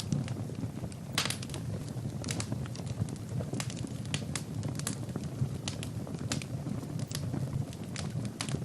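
Wood fire burning in a fireplace: a steady low rumble of flames with irregular sharp crackles and pops from the logs, including a brief flurry of crackling about a second in.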